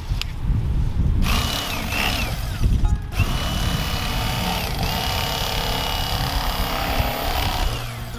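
Bubba Blade electric fillet knife running while slicing perch fillets: a steady high-pitched motor whine that starts about a second in, cuts out briefly near three seconds, then runs again until just before the end.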